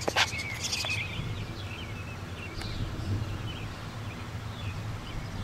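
Birds chirping in short scattered calls, busiest in the first second, over a steady low outdoor hum, with one sharp click just after the start.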